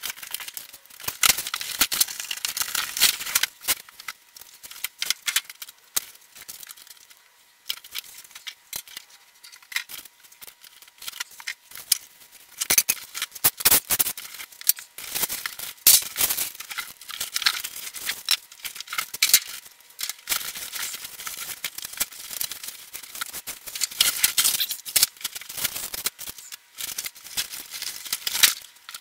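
Unpacking a boxed metal blast cabinet, played back fast: cardboard and packing rustling, tearing and scraping, with clicks and clatter from sheet-metal panels and parts being handled, run together into a rapid high crackle.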